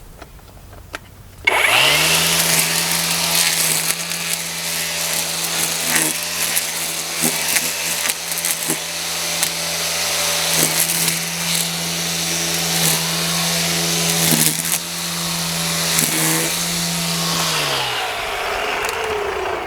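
Cordless battery string trimmer starting up about a second and a half in, its motor whirring at a steady pitch while the spinning line cuts grass, with scattered ticks of debris; near the end it is released and winds down.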